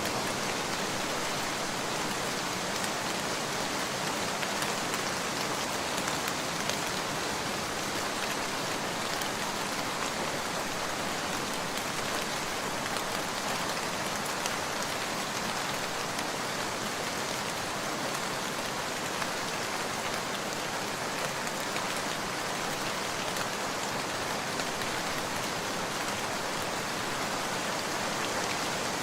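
Steady rain falling, an even hiss with scattered individual drops pattering on surfaces.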